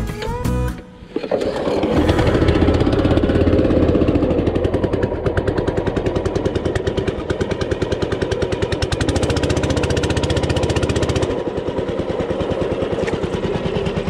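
A small engine running with a rapid, even firing rhythm and a low hum, easing off slightly about eleven seconds in.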